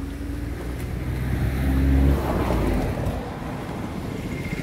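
A car passing close by on a road, its engine and tyre noise building to a peak about two seconds in and then fading as it goes away.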